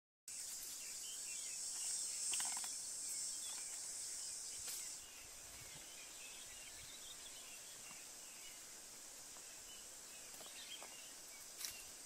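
Rural outdoor ambience: a high, steady insect drone with scattered bird chirps. The drone stops about five seconds in, leaving quieter ambience with chirps and a couple of light ticks near the end.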